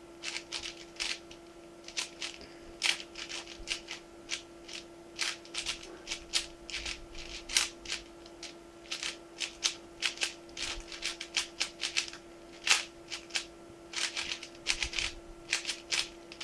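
Layers of a plastic 4x4 Rubik's-type cube being turned quickly by hand as it is scrambled: irregular runs of sharp plastic clicks and clacks, over a faint steady hum.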